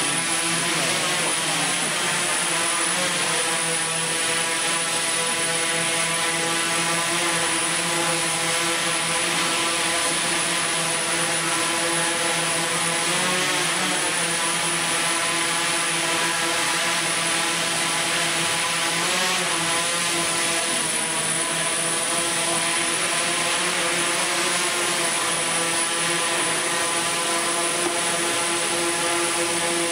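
Large eight-rotor camera drone hovering, its propellers giving a steady multi-tone whine and buzz. The pitch wavers briefly a couple of times as the motors change speed.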